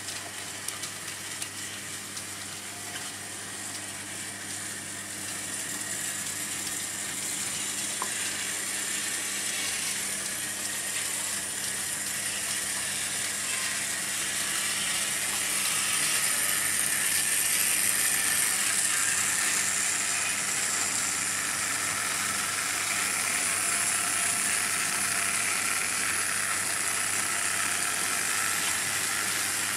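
Märklin H0 model trains, diecast locomotives pulling tin-plate wagons, running on stamped-steel M-track: a continuous mechanical rattle of wheels and motors over the metal rails, with a steady low hum underneath. The rattle grows louder about halfway through.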